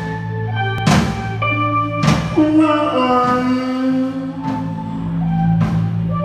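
Live rock band playing: electric guitar and held chords over a bass line, with drum-kit hits on a Premier kit about once a second.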